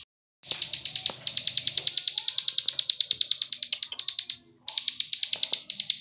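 Plain prinia singing its clicking song: a rapid, even run of sharp high clicks, about ten a second, with a short break about four and a half seconds in before it starts again.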